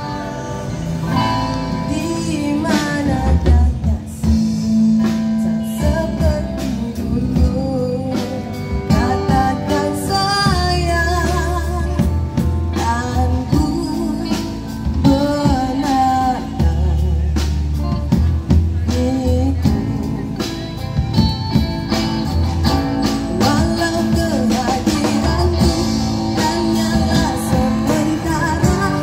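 Live amplified band music: a female vocalist singing a melody over guitars and a drum kit, with a steady beat and sustained low bass notes, played through PA speakers.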